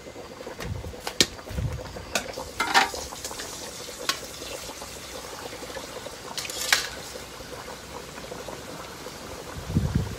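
A pot of tilapia soup boiling on a charcoal stove, with scattered sharp pops and clicks over a steady bubbling hiss. Two short louder rushes come about three and seven seconds in, and there are a few soft low thuds.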